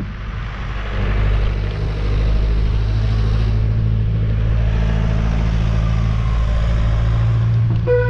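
Ice cream van's engine running as it drives down the street, getting louder about a second in and again at two seconds, with road and wind noise over it.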